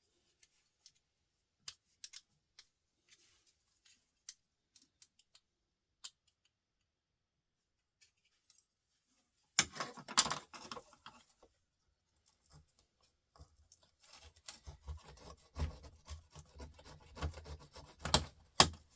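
Hand tools clicking and scraping on a scrap laptop part as a small bit of plastic is cut and pried off the copper: a few scattered clicks at first, then busy scraping and snipping from about ten seconds in, and again more steadily over the last five seconds.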